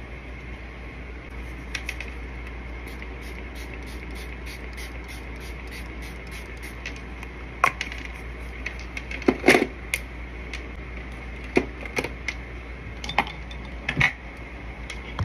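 Handling noise: scattered small hard clicks and knocks as makeup items are picked up and set down, the loudest cluster about nine and a half seconds in, then the phone being picked up and moved near the end, over a steady low hum.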